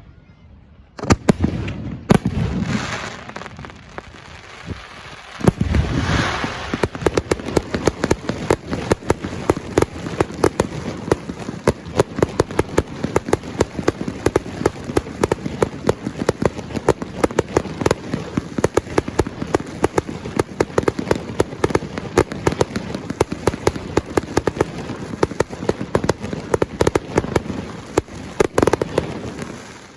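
Fireworks display: a few separate bangs, then from about five seconds in a dense, continuous crackle of many rapid pops and bangs.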